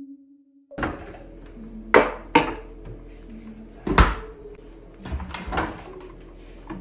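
Footsteps on a tiled floor in a small room, with about six uneven thuds and knocks, the loudest two about two seconds apart. It opens with a short held musical tone that cuts off just under a second in.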